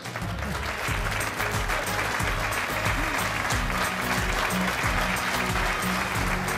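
Studio audience applauding, with walk-on music playing underneath as a guest is brought onto the stage.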